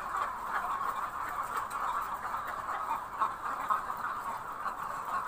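A flock of chickens clucking continuously: many birds calling at once in a dense, steady chatter.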